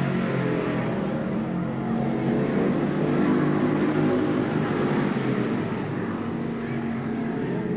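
Several stock car engines racing together, their overlapping notes rising and falling in pitch as the cars go down the straight and through the turn.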